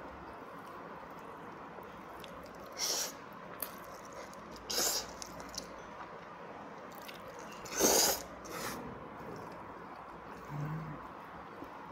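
A person slurping jjajangmyeon noodles in black bean sauce off chopsticks, four separate slurps with the loudest about two-thirds of the way through, and quiet chewing between them.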